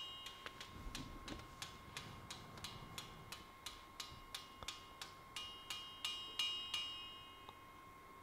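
Blacksmith's hand hammer tapping on a red-hot steel scythe blade on the anvil, about three light blows a second, each with a short metallic ring, upsetting the warped edge of the blade. The blows stop near the end.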